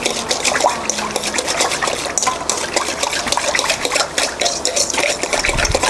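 Wire whisk stirring thin batter in a stainless steel bowl: rapid, continuous clinking and scraping of the wires against the metal, with the liquid sloshing.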